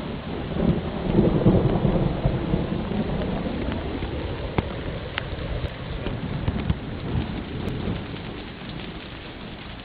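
Heavy rain falling on a street and pavement, with a long roll of thunder that swells within the first second, is loudest a second or two in, and rumbles away over several seconds.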